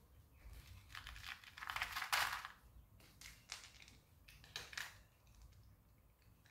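A cat eating dry kibble from a foam tray: bursts of crunching and crackling, loudest about two seconds in, with shorter bursts around three and a half and just before five seconds.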